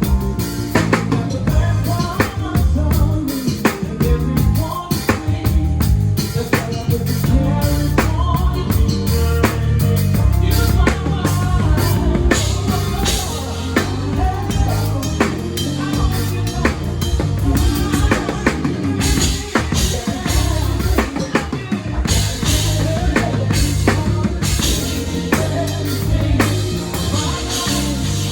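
Live band playing at a sound check, the drum kit to the fore: steady kick and snare hits over a heavy bass line.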